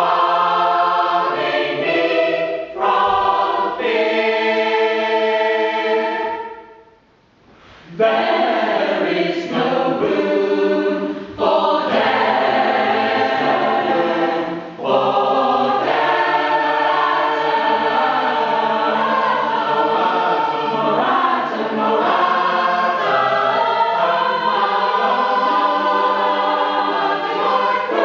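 Mixed choir of men's and women's voices singing sustained chords in harmony, unaccompanied. About six seconds in a held chord fades away, and after a short pause the choir comes back in and sings on without a break.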